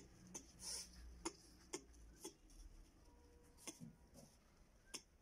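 Near silence with a handful of faint, sharp clicks at irregular intervals.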